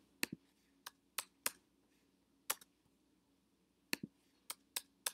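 Computer keyboard keys pressed one at a time, about a dozen sharp clicks at uneven intervals, while lines of pasted text are joined up.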